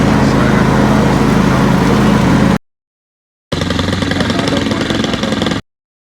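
An engine running steadily that cuts off abruptly about two and a half seconds in. After about a second of silence comes a second, shorter stretch of engine sound with a fast, even pulse, which also stops abruptly.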